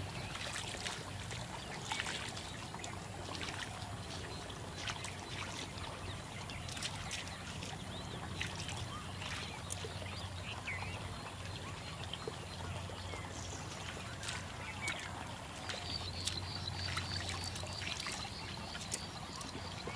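Hands working in wet mud and shallow water, with small wet clicks and trickles, over a steady low hum. A rapid run of high pips, about three or four a second, sounds near the end.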